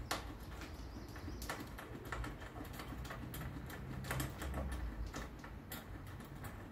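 Quiet, irregular light clicks and taps of small metal hardware, a nut and washers being handled and run on by hand at the bottom of a Series Land Rover door top, over a faint low hum.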